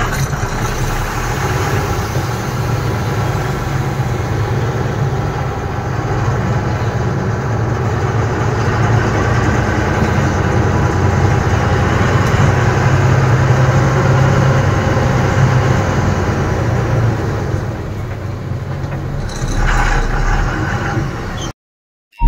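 Heavy truck's diesel engine running as the lorry drives slowly, heard from inside the cab. It stops abruptly near the end.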